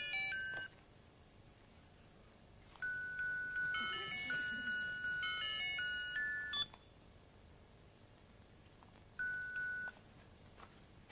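An electronic beeping tune of pure notes, stepping from one pitch to the next several times a second, like a musical chime or ringtone. It plays in three phrases: briefly at the start, for about four seconds from about three seconds in, and briefly again near the end.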